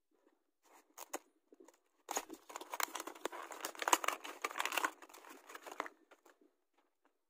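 Clear plastic packaging crinkling as it is handled and pulled open. There are a few light clicks at first, then a dense run of crinkling for about four seconds, and it stops a little before the end.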